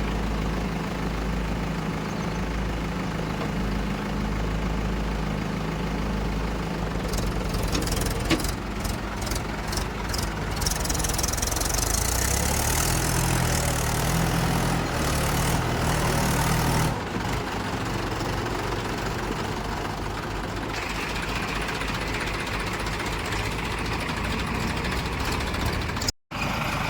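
Heavy diesel engine of a tractor or backhoe loader running, its note and load shifting about eight seconds and again about seventeen seconds in. The sound cuts out briefly near the end.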